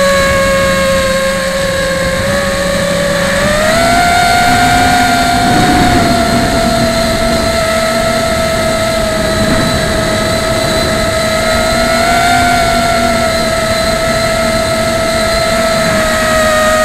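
Martian 2 quadcopter's electric motors and propellers whining steadily. The pitch rises about three and a half seconds in as the throttle goes up, then holds with slight wavers.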